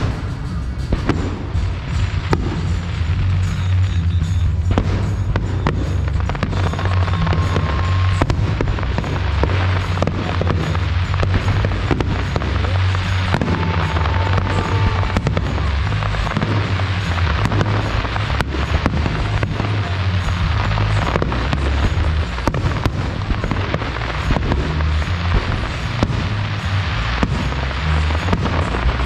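Aerial fireworks exploding in a dense, rapid barrage: many sharp bangs and crackles following close on one another over a continuous low rumble.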